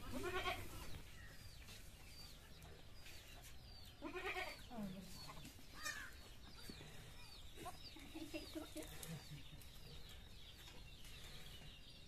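Goats bleating, a handful of short calls at intervals, against a quiet background with faint repeated high bird chirps.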